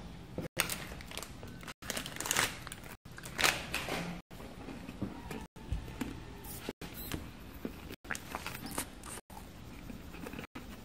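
A hand handling a paper card on a tabletop, making a few rustling, scraping noises that are loudest in the first four seconds. The audio cuts out briefly about every second and a quarter.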